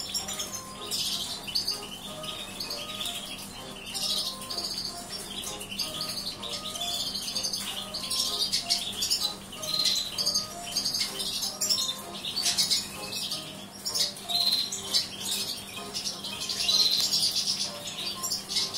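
Caged finches calling: repeated short, high chirps and sharper calls throughout. Light clicks and rustles of birds moving in the cage run under them, with a faint steady hum.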